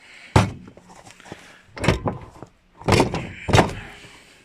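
A door being handled and knocked into place: a sharp bang about half a second in, then three more knocks or thuds, the last two close together near the end.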